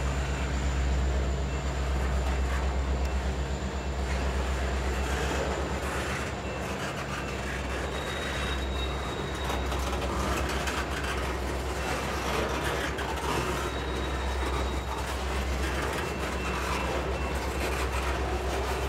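Freight train of loaded tank cars rolling past at a steady speed, the wheels running on the rails with a steady rumble and clacking over the rail joints. A faint high wheel squeal comes in twice, about halfway through and again a few seconds later.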